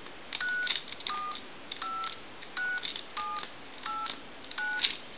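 Touch-tone keypad on a duck novelty telephone's handset being pressed key by key: seven short two-tone DTMF beeps in a row, a little under one a second, each with a click of the button. The repaired phone is sending its dial tones again, every key checked in turn.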